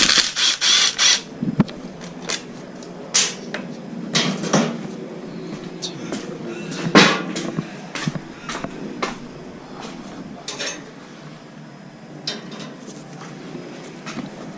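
Scattered metal clinks and knocks of hand tools being handled during motorcycle chain and sprocket work, with a denser clatter in the first second.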